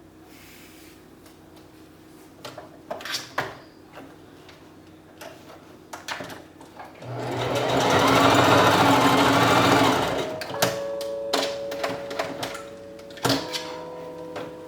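A sewing machine stitching in one fast run of about three seconds in the middle, preceded by scattered clicks and knocks. After it, steady musical notes come in.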